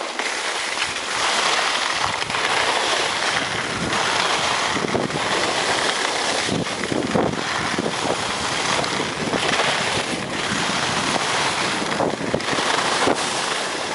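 Wind rushing over the microphone during a fast downhill ski run, with the steady hiss of skis sliding over groomed snow. The wind buffets in short flutters throughout.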